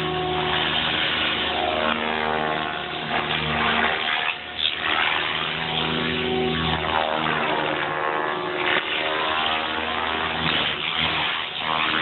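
A Compass 7HV electric radio-controlled helicopter flying, its rotor and motor whine rising and falling in pitch over and over as it manoeuvres and passes.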